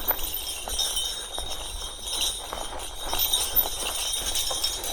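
Light metallic jingling and rattling from a folding e-bike being ridden, with irregular small clicks and knocks as it rolls along.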